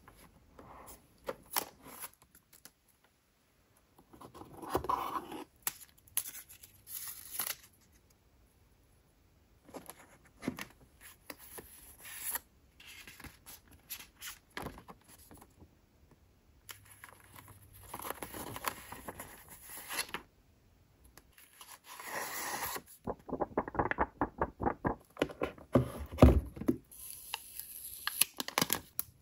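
Packaging being handled: the paper cover sheet lifted out, paper wrapping rustled and torn open, and protective plastic film peeled off a laptop power adapter. The sounds come as short rustles, scrapes and tears with quiet pauses between them, busiest near the end.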